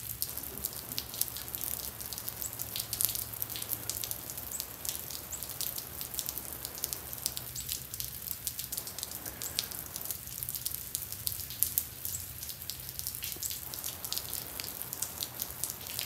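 Freezing rain falling and dripping onto ice and metal patio furniture: a steady hiss with many small, irregular ticks of drops.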